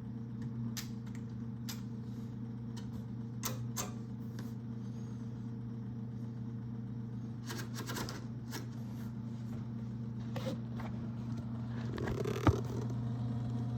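IBM Selectric I electric typewriter with its motor running, a steady mains hum, while its mechanism gives scattered sharp clicks. There are single clicks, a short cluster of clicks about eight seconds in, and one loud clack near the end.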